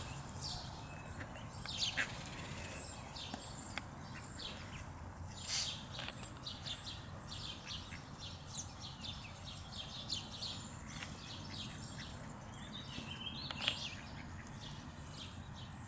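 Mallard ducklings peeping: many short, high-pitched chirps scattered throughout, some in quick runs, over a steady low background hum.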